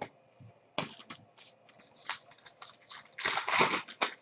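Foil trading-card pack wrapper being handled and torn open, with scattered clicks and crinkles, then a loud tearing rustle about three seconds in.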